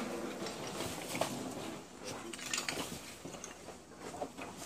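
Scattered clinks and knocks of broken masonry and debris shifting underfoot on earthquake rubble, with faint voices in the background.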